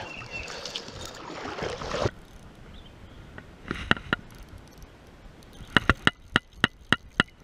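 Rushing, splashing water for about two seconds, cutting off abruptly. Then sharp ticking clicks, a couple near the middle and a quick irregular run near the end.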